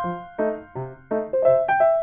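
Background piano music: single notes and chords struck every third to half a second, each ringing and fading before the next.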